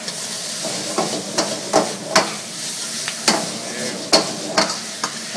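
Food sizzling in a wok while a metal spatula scrapes the pan and strikes it in several sharp, irregular clanks as the food is stirred and tossed.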